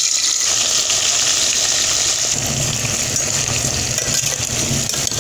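Cubes of raw yam frying in hot oil in a pot: a steady sizzle with fine crackling.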